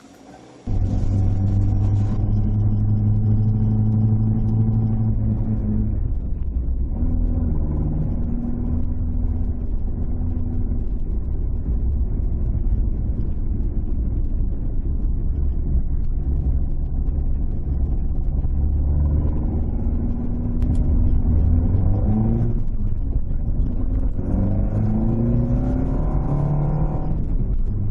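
Toyota AE86's 5-valve 4A-GE four-cylinder engine on 50 mm Weber carburettors, loud through its exhaust manifold, driving: it comes in abruptly about a second in, holds fairly steady at first, then revs climb and drop with gear changes later on.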